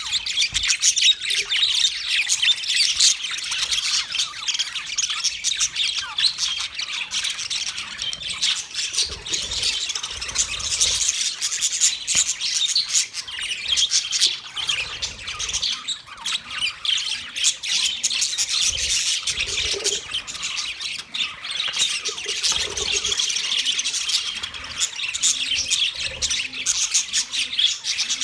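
Large colony of budgerigars chirping and squawking together, a dense continuous chatter of many overlapping calls.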